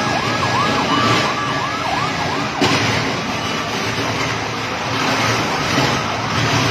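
Emergency vehicle siren in a fast yelp, a quick rising-and-falling wail about three times a second, fading out about two and a half seconds in, over steady street noise. A sharp knock comes just after the siren fades.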